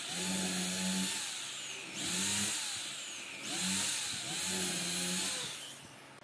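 Electric drill boring into a wooden rail, its motor speeding up and sagging again about five times as the bit bites into the wood, then stopping near the end.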